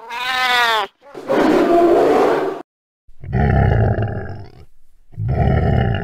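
Animal roar sound effects: a short cry falling in pitch, then three rough roars of a second or so each, with brief silences between them.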